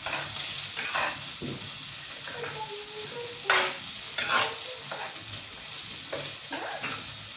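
A metal spoon stirring thick, creamy rajitas con crema in a stainless-steel pot on a portable gas burner, scraping and knocking against the pot a few times over the steady hiss of the food cooking.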